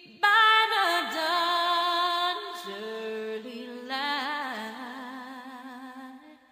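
Music of wordless singing in long held notes with vibrato, coming in suddenly and fading away near the end.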